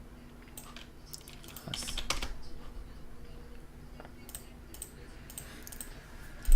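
Computer keyboard and mouse clicks, scattered taps with a busier cluster about two seconds in, over a faint steady hum.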